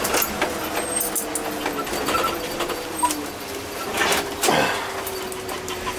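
Cab noise of a step van on the move: a whine that slowly falls in pitch, under a run of rattles and clicks, with a louder clatter about four seconds in.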